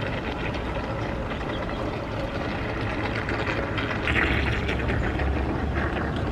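Twin brushed electric motors of an RC bait boat running steadily on the water, a low continuous hum with splashing noise.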